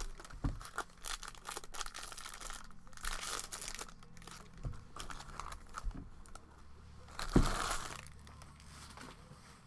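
A foil trading-card pack wrapper rustling as the cards inside are handled, shuffled and flicked through by hand: a run of rustles and soft clicks, with a louder rustle about seven and a half seconds in.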